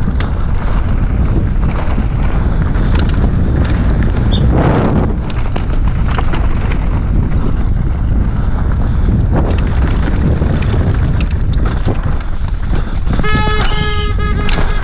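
Wind rushing over a GoPro's microphone with the rattle and knocking of a downhill mountain bike and its tyres over a dusty dirt trail at speed. A steady pitched buzz joins about a second and a half before the end.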